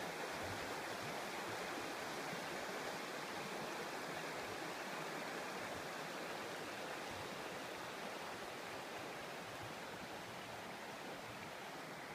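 River water running over a stony, pebbly bed: a steady rushing that gets slightly quieter toward the end.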